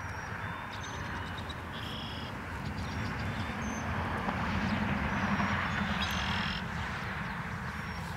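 Outdoor background noise, a low rumble and hiss that swells toward the middle and eases off, with short bird calls about two seconds in and again about six seconds in.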